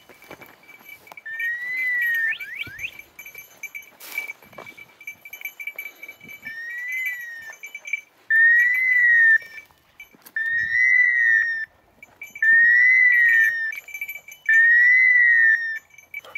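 Hunting dog's electronic beeper collar sounding a loud tone that rises then falls, about a second long. It sounds once near the start, then repeats roughly every two seconds from about halfway on.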